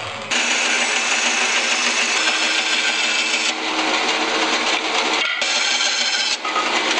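Bandsaw running and cutting through a walnut board: a loud, steady machine noise with a hum under it. It starts abruptly just after the start, its high hiss drops back about halfway through, and it briefly dips twice near the end.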